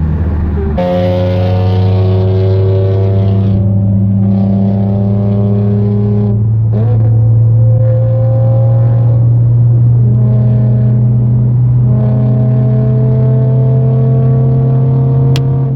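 Car engine and exhaust droning at steady, slowly climbing revs while driving, with brief dips in the higher tones a few times along the way.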